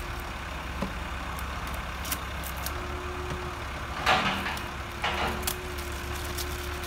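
Plastic nutrient bottles being handled, with a few light clicks and two brief rustles about four and five seconds in, over a steady low hum.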